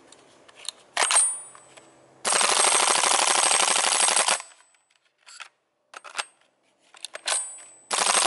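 Army Armament G36 gas-blowback airsoft rifle firing on full auto: a sharp click about a second in, then a rapid burst of about two seconds. A few separate clicks follow, and a second burst starts near the end.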